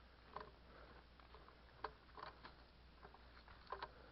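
Near silence, with a few faint, scattered ticks and crackles.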